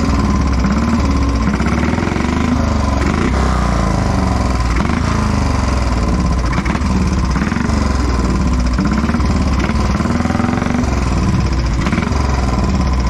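Velocette KTT's single-cylinder engine running at low speed, its pitch rising and falling again and again as the throttle is opened and eased off.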